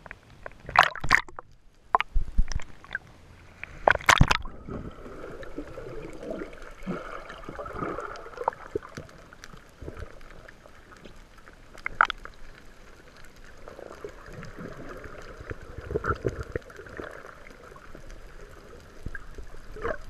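Water sloshing and gurgling around a camera held at or just under the surface, muffled, with several sharp knocks in the first few seconds and one more about halfway through.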